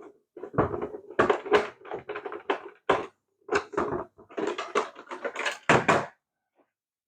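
Hard plastic parts of a toy RC car being handled and knocked together: an irregular run of clicks and knocks that stops about six seconds in.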